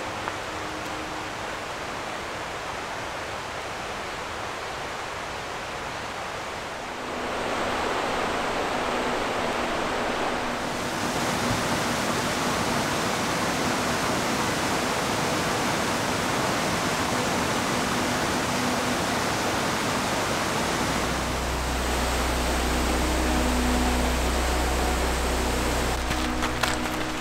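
Steady rushing of a mountain creek, growing louder about seven seconds in and again a few seconds later, with a low rumble joining near the end.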